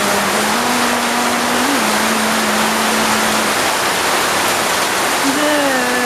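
Heavy rain falling steadily. A low, steady hum runs under it through the first half, and another wavering hum starts near the end.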